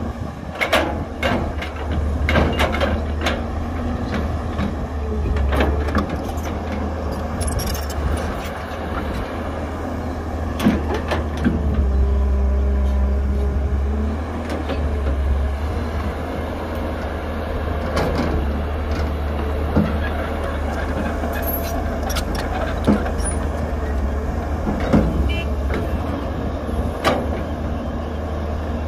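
Heavy diesel engines of an excavator and a dump truck running with a steady low rumble that swells for a couple of seconds about twelve seconds in. Scattered knocks and clatter come from the excavator working and dirt being loaded.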